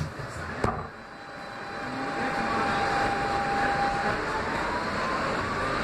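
R160 subway train running through a tunnel: wheel and track rumble with two sharp clicks near the start, then a thin whine from the propulsion that holds one pitch and begins rising about two thirds of the way through as the train gathers speed.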